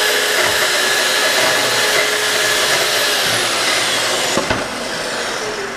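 Festool track saw cutting a cabinet filler board, with a dust extractor drawing through it. About three seconds in the saw is switched off and its whine falls away; a click follows, and the extractor's sound sinks toward the end.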